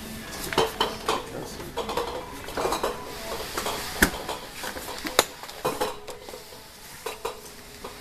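Small two-door refrigerator knocking and rattling as it is hoisted, tilted and settled onto a man's chin. There are repeated clunks with a short metallic ring, and sharp knocks about four seconds in and just after five seconds.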